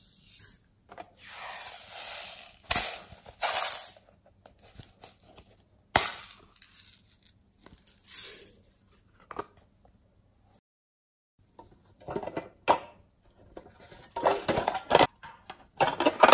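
Hands handling slime add-ins over a glass tray: a small packet crinkling as glitter and sequins are shaken out, then scattered sharp clicks and taps from a small metal scoop and plastic containers. There is a short silent gap about ten seconds in, and the handling noises cluster more densely near the end.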